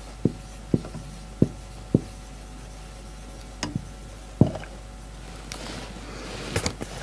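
Marker writing on a whiteboard: a string of short sharp ticks as the tip strikes the board, then a longer stretch of the tip rubbing across it near the end.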